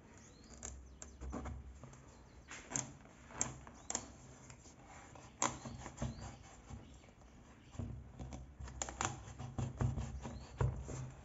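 Irregular clicks and knocks, a dozen or so at uneven intervals, the sound of objects being handled, over a low hum, with faint bird chirps.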